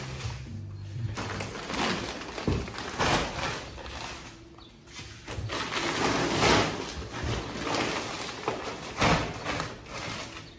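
Large plastic-wrapped sacks of dog food being handled and loaded: plastic sacking rustling and crinkling, with a few dull thumps as sacks are set down.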